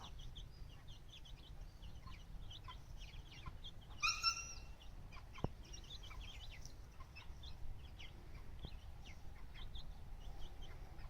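Chickens in a yard: a steady scatter of short, high chirps and peeps, with one louder call of about half a second some four seconds in, over a low rumble.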